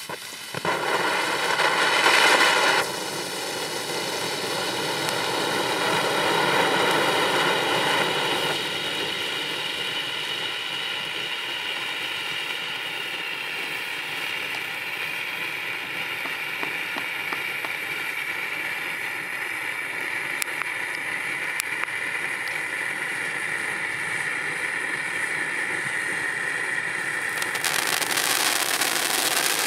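Home Run Hitter baseball-bat fountain firework burning with a steady rushing hiss through its red-flame stage. About 27 seconds in, the sound turns brighter and a little louder as it switches to spraying titanium sparks.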